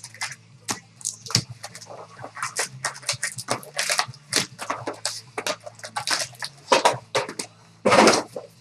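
Trading card packs and cards being handled: irregular crinkling and rustling of pack wrappers and cards being slid and shuffled, with a louder rustle near the end, over a faint steady low hum.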